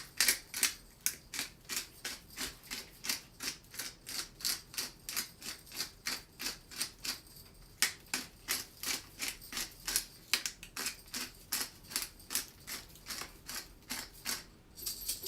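Pepper grinder being twisted to grind peppercorns, a steady run of dry crunching clicks at about three a second.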